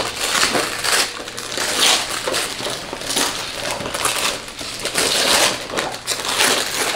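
Wrapping paper being torn and crumpled off gift boxes, in irregular rustling bursts.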